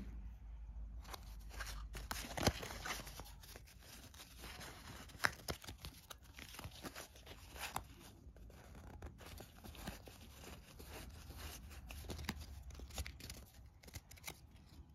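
Stack of paper game cards handled and fanned out by hand: cards sliding and rustling against each other, with many small clicks and flicks.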